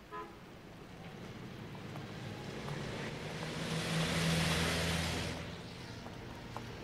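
A motor car passing by: its engine and road noise swell over a few seconds, loudest about four seconds in, then fade away.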